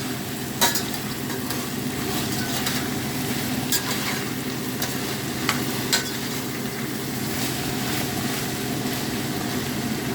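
Peppers, mushrooms, celery and pork frying in a pan with a steady sizzle. The food is being stirred, with a few sharp clicks of the utensil against the pan.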